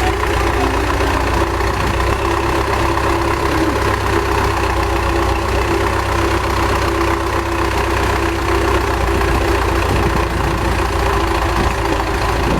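Old MTZ tractor's diesel engine running steadily.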